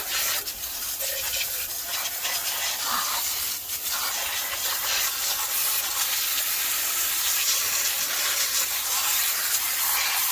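Pressure washer jet spraying water onto a greasy, degreaser-soaked diesel engine: a steady, loud hiss.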